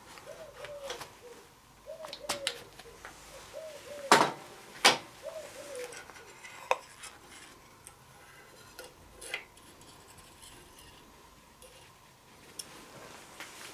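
Metal clinks and knocks of hand tools and parts against a cast-iron master brake cylinder held in a vise, during its disassembly. The two loudest knocks come about four and five seconds in, followed by a few lighter clicks.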